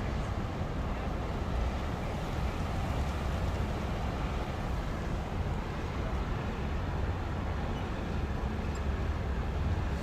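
Wind buffeting the microphone outdoors, a steady low rumble that flutters without letting up.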